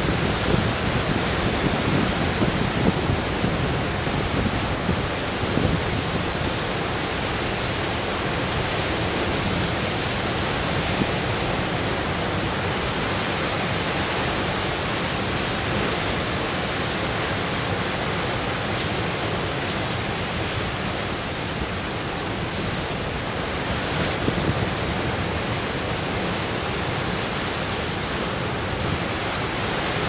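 Storm waves on Lake Superior breaking on the shore: a steady, dense roar of surf, a little more uneven in the first few seconds and near the end.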